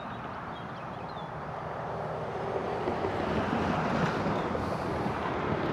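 Road traffic noise, a steady rushing that grows louder about halfway through as a vehicle passes.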